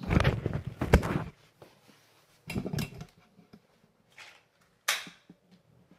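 Handling noise as a nylon-string classical guitar is set down against the wall, a loud rustling clatter with a sharp knock in the first second. A shorter burst of movement noise follows about halfway through, and a single sharp knock near the end.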